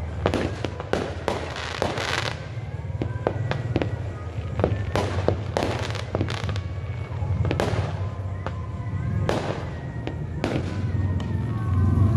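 Aerial fireworks going off: a long, irregular series of sharp bangs and cracks, some in quick clusters and others spaced a second or so apart, over a steady low rumble.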